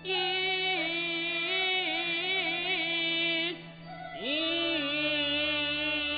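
Kunqu opera music: a sustained, ornamented melody over a low steady drone. It breaks off briefly about three and a half seconds in, then returns with a note that slides up and is held.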